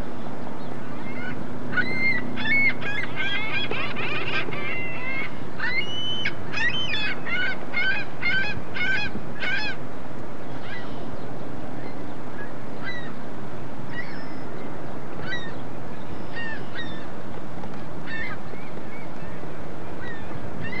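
A flock of birds calling: many short, high calls crowded together for the first ten seconds or so, then fewer and scattered, over a steady low hum.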